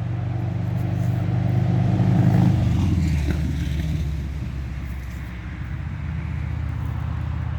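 A motor vehicle passing by: a low engine sound grows louder, then drops in pitch about two and a half seconds in as it goes past.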